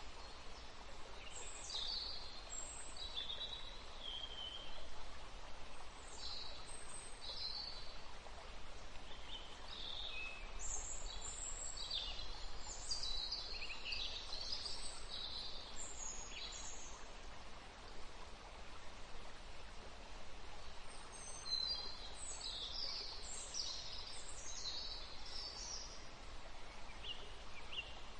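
Small birds chirping in short, high twittering calls that come in scattered clusters, over a steady background hiss.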